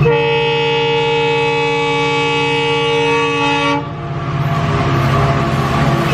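Train horn sounding one long steady blast of nearly four seconds, then the rising rush and rumble of a train running.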